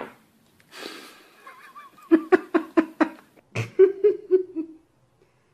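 A person laughing: a quick run of 'ha' bursts, about five a second, then after a brief pause a second, shorter run.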